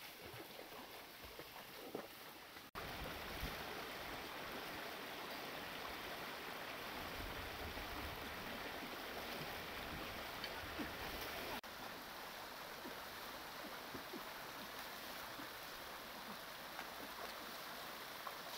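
Shallow stream rushing over rocks, a steady hiss of flowing water. In the first few seconds the water is quieter, with scattered splashes of feet wading through it. After a sudden break about three seconds in, the rushing water is louder and steadier.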